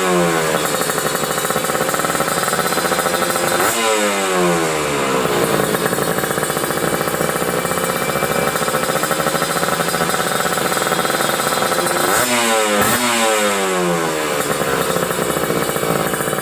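Kawasaki Ninja 150 RR's two-stroke single-cylinder engine running at idle through an Arrow aftermarket exhaust. At the start the revs are falling off; the throttle is blipped sharply about four seconds in, then twice in quick succession near twelve seconds, and each time the revs fall back to idle.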